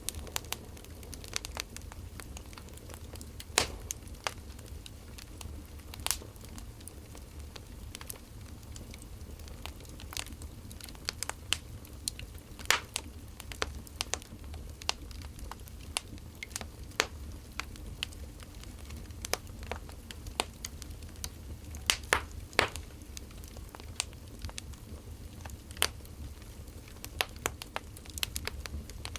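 Burning firewood crackling, with irregular sharp pops and snaps over a steady low rumble.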